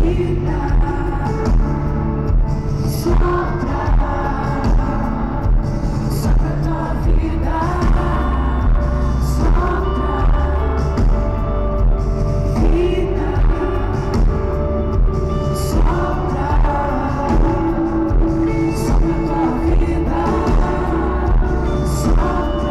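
Live worship band playing over a stadium PA, with a steady drum beat and a vocalist singing over the band.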